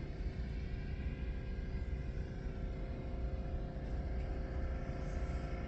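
A machine or engine running steadily: a constant low rumble under an even hum of several steady tones.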